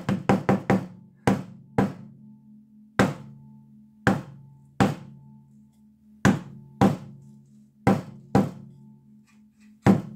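Tack hammer striking a wet acrylic painting on a small canvas panel: about fifteen sharp knocks at uneven spacing, a quick run of five right at the start, then single blows every half second to second and a half.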